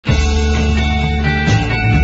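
Background rock music with sustained guitar and bass tones, starting at full level right away.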